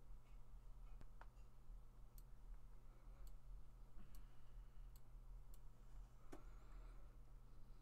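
A handful of sharp, scattered computer mouse clicks over a steady low electrical hum; otherwise near silence.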